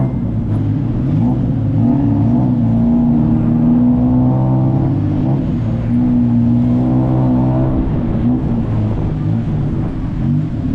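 Motor vehicle engine running loud and close, its pitch shifting up and down several times as the revs change.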